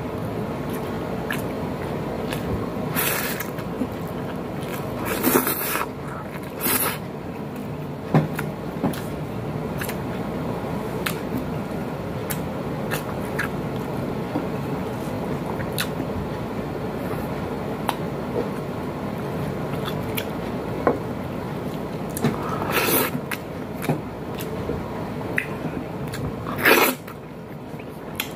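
Close-up eating sounds of a man eating with his hands: chewing and small mouth clicks, with a few louder short wet smacks or slurps spread through. These sit over a steady hum from the room's air conditioning.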